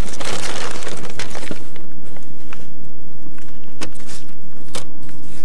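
Close handling noise: rustling for about a second, then a few scattered sharp clicks and taps.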